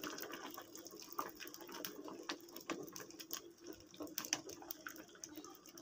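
Metal spoon stirring hot vegetable soup in an aluminium pot: soft sloshing of the broth with scattered light clicks of the spoon against the pot.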